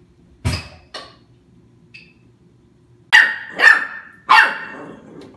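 Puppy barking three times, about half a second apart, at a metal colander on the floor that he doesn't like. Before the barks, a thump and a lighter knock on the floor.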